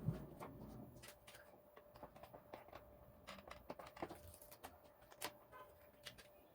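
Faint, scattered light clicks and taps, as of small parts being handled during a microwave touch-pad repair, over a faint steady hum.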